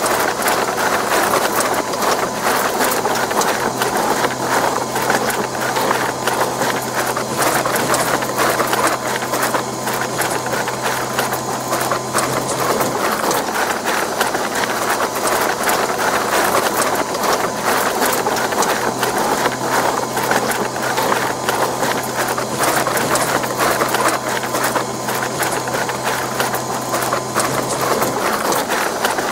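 Electric bread dough mixer running steadily: a continuous motor hum under a dense, rapid clatter from the kneading.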